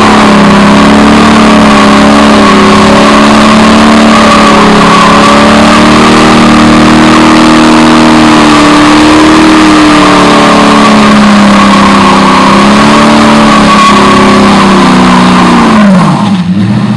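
Dodge Challenger engine held at high revs, very loud, during a burnout, the rear tyres spinning on the asphalt. Near the end the revs drop and the sound falls away as the driver lets off.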